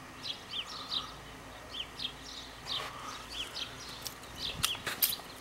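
Small birds chirping: short, repeated chirps, a couple each second, over steady outdoor background noise. A few sharp clicks come near the end.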